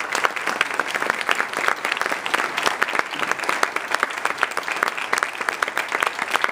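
Audience applauding steadily, many pairs of hands clapping at once.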